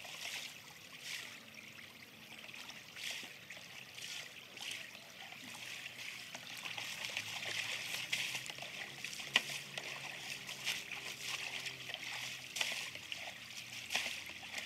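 Shallow river running over stones, with water splashing in uneven bursts as it is scooped and thrown over a motor scooter. A single sharp knock about nine seconds in.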